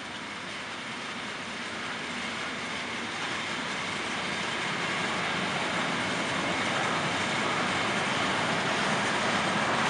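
Intermodal freight train of wagons carrying lorry trailers rolling past on the track, a steady rumbling wheel-and-rail noise that grows gradually louder.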